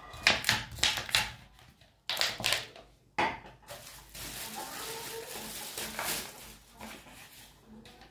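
Plastic water bottles knocking as they are handled, with several sharp clicks in the first few seconds, then clear plastic wrapping film crinkling for a few seconds as a bottle is unwrapped.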